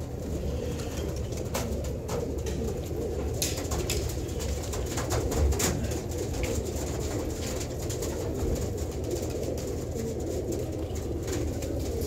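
A flock of domestic pigeons cooing, a steady overlapping chorus of coos, with a few sharp clicks scattered over it.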